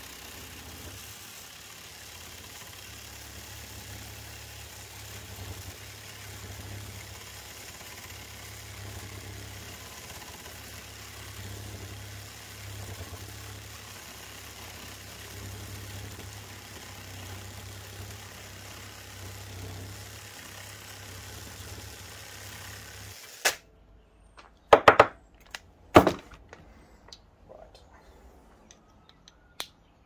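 Cordless reciprocating saw cutting through the end of a microwave magnetron's copper-and-steel anode held in a vise, running steadily for about 23 seconds and then stopping abruptly. After it stops there are two loud sharp metallic knocks about a second apart, then a few light clicks.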